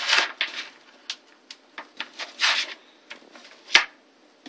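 Cable leads and small plastic plug connectors being handled and pushed together on a wooden desktop: scattered light clicks and short rustles, with one sharper knock near the end.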